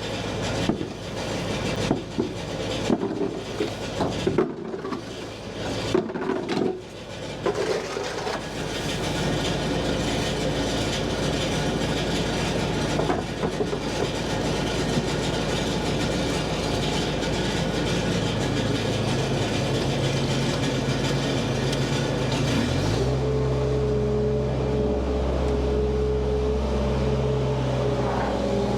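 Skid steer engine running, with knocks and scrapes in the first several seconds as the bucket works. Near the end the engine revs up and holds a higher, steady pitch.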